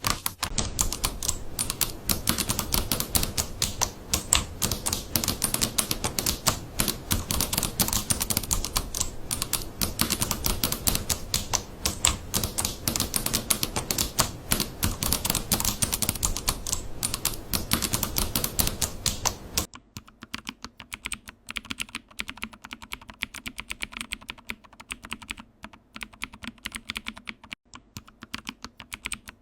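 Fast, continuous typing on a computer keyboard, a dense stream of keystrokes with a full low end. About 20 seconds in it cuts abruptly to a different keyboard being typed on, quieter and lighter, with sparser clicks.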